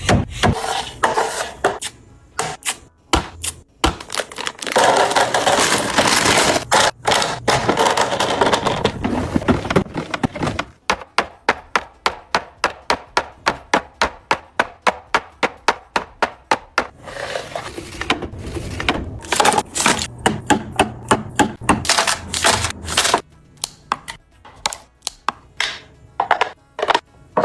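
Plastic and glass containers and packaging being handled and set down in a fridge: many sharp clicks, taps and knocks, with an even run of about three clicks a second in the middle, and stretches of rustling or pouring noise.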